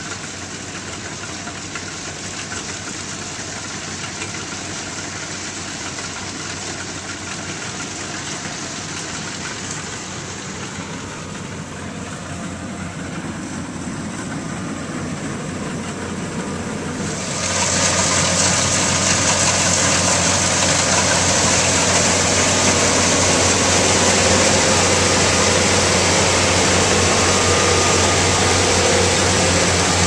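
Kubota DC-95GM combine harvester's engine and threshing machinery running steadily while harvesting rice, getting much louder about 17 seconds in as the machine comes close.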